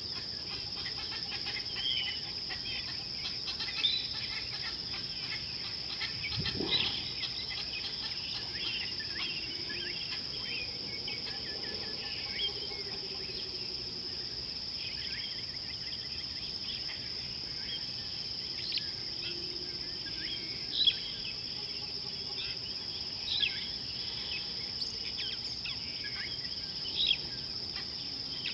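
Outdoor bush ambience: insects trilling in a steady, unbroken high band, with many short bird chirps and calls scattered over it.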